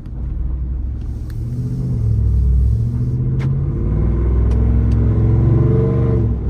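Ford F-150 Tremor's 5.0 Coyote V8 accelerating with its exhaust cutouts open. The pitch climbs, dips at a gear change about three seconds in, then climbs again.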